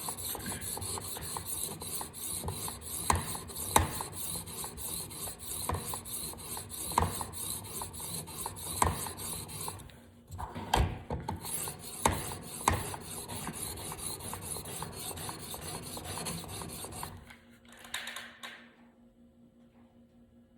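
Diamond sharpening stone on a TSPROF guided knife sharpener, stroked back and forth along a steel knife edge with light pressure: a dry, repeated rasping scrape as the edge is refined. The strokes pause briefly about halfway and stop about three-quarters of the way through, followed by a soft knock and then near quiet.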